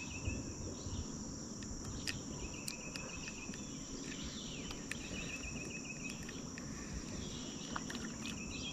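Insects chirring in a steady, high-pitched drone, with a short, rapid trill repeating about every two seconds. A few sharp clicks stand out over the top.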